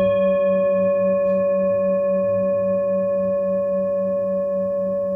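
A struck bell ringing on: one clear sustained tone with a slow pulsing wobble, fading very gradually.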